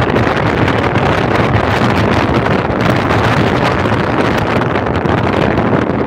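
Strong wind buffeting the microphone: a loud, continuous, unsteady rushing noise.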